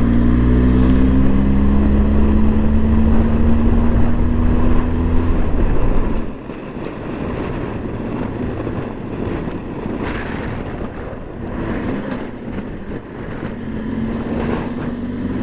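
Benelli motorcycle engine running while riding, with rushing road and wind noise. The engine note climbs a little and holds for about five seconds, then drops away about six seconds in, leaving mostly the rushing noise, and comes back faintly near the end.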